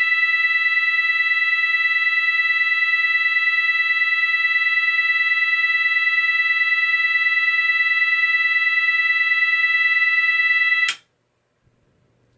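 GE AS363 alarm signal sounding its 660 Hz continuous tone, the Swedish all-clear signal: one steady, unchanging tone that cuts off suddenly about 11 seconds in.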